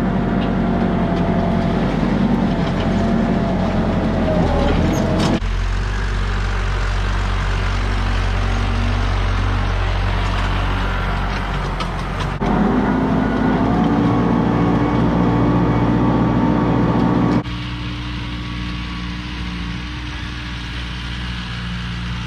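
New Holland T2420 compact tractor engine running steadily under load as it drags a box scraper through old, compacted manure. The sound changes abruptly a few times and is quieter over the last few seconds, as the tractor works farther off.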